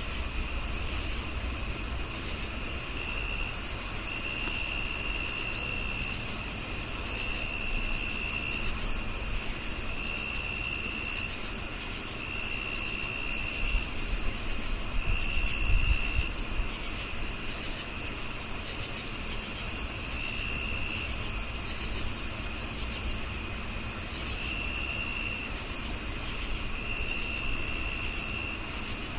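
A chorus of crickets calling at night-style steady pace: one steady high trill, a regular chirp repeating about two to three times a second, and a lower trill that comes and goes in stretches of a second or two. A low rumble sits underneath and swells briefly about halfway.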